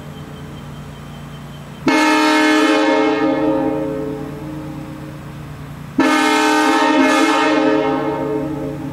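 Restored Nathan AirChime M3 three-chime locomotive horn sounding two blasts of its chord, each starting suddenly, held about two seconds, then dying away with a long echo. The tail of an earlier blast is fading out at the start.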